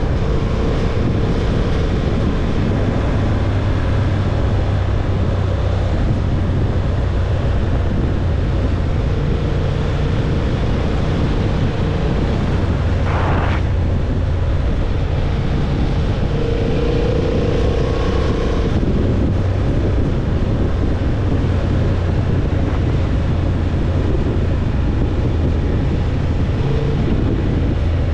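Honda CB750 Hornet's parallel-twin engine running steadily at a constant road speed, with wind noise on the helmet microphone. A brief higher-pitched sound cuts through about halfway.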